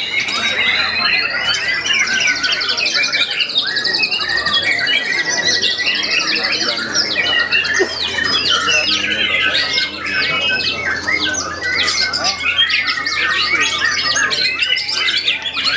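White-rumped shamas singing in contest: a dense, continuous mix of quick whistles, fast trills and harsh chattering notes, several birds overlapping.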